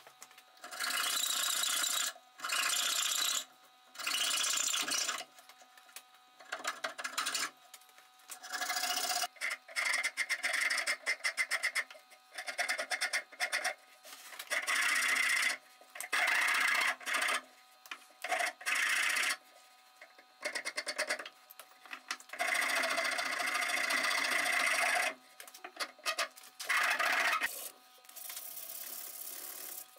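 Wooden cleaver handle being smoothed by hand with abrasive strokes, a rasping rub in runs of one to two seconds separated by short pauses.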